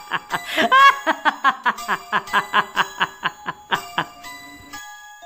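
A person laughing in quick, even bursts of about five a second, with one higher cry near the start. Near the end the laughter stops and soft chiming music tones take over.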